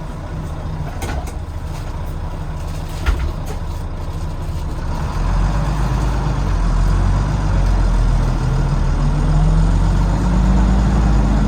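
Volvo D9B diesel engine of a B9TL double-decker heard from the back seat, running low at first with one sharp knock about three seconds in. About halfway through it gets louder as the bus pulls away, with a tone rising slowly near the end.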